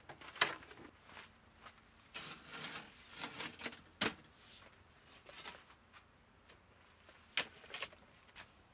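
Handling noise from camp furniture being set in place: a folding camp table and a folding chair clunk and rattle as they are put down and moved, with rustling between. The sharpest knock comes about four seconds in.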